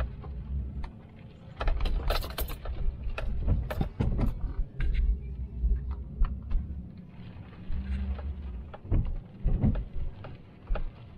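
Vehicle driving slowly over a rough, washed-out dirt road: a low road rumble with frequent knocks and rattles, bunched about two to four seconds in and again about nine seconds in.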